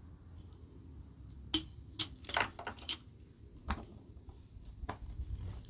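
About half a dozen sharp, irregular plastic clicks and taps as hands fit parts back onto a Husqvarna 460 Rancher chainsaw around its fuel tank, after a fuel-filter change.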